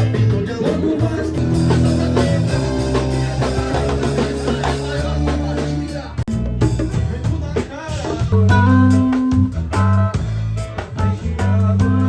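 Music with guitar and drums over a steady beat, with a brief break about six seconds in.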